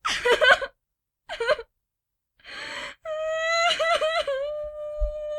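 A female voice crying: two short broken sobs, a gasping inhale, then one long drawn-out wail that wavers at first and then holds a steady pitch.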